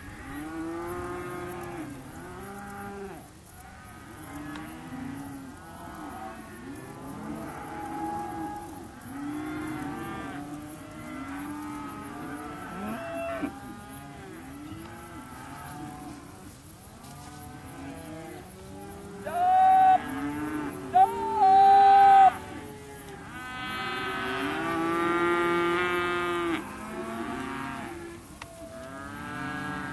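A mob of weaner calves bawling, many calls overlapping without pause, with a few much louder, close calls about two-thirds of the way through.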